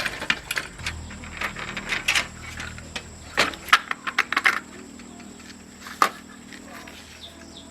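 Small metal parts clinking and clattering as they are handled: a string of sharp knocks and jingles, thickest about three and a half to four and a half seconds in, with one more strike about six seconds in. A low steady hum underneath stops about four seconds in.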